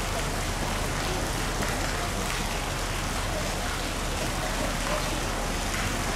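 Steady rushing background noise with indistinct voices of people mixed in.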